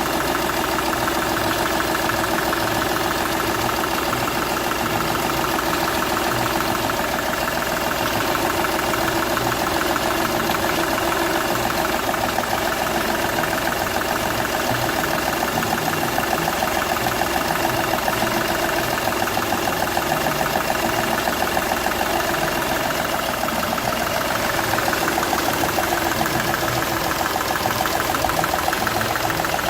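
Seat Ibiza's 1.2 TDI three-cylinder diesel engine running steadily at idle, with compression escaping from the first cylinder past a burnt injector seal.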